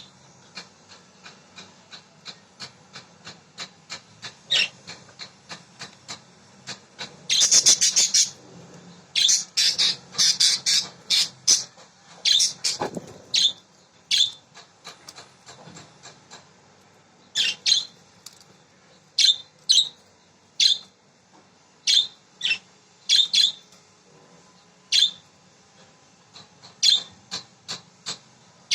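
A pair of budgerigars chirping: a string of short, sharp chirps, with a dense run of rapid chatter about seven to thirteen seconds in.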